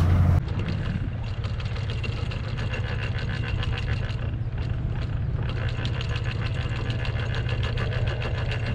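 Sailing catamaran's engine running steadily: a low hum with a fast, even beat.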